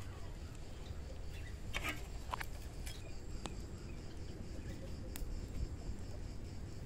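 Wood fire burning, with irregular sharp crackles and pops from the logs over a low steady rumble.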